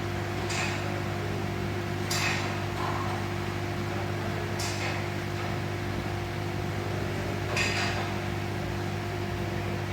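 A heat gun running with a steady hum as it warms the ECU circuit board to seat the replacement ignition-coil driver MOSFET. Four short metallic clinks of tools on the board are spread through it.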